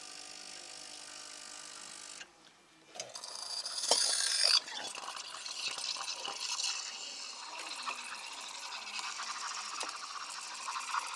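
KitchenAid Artisan 5KES2102 espresso machine's steam wand opening about three seconds in with a sharp high hiss. It then settles into a steady hiss with fine crackle as it froths milk in a stainless steel pitcher for a cappuccino. A faint steady hum comes before it.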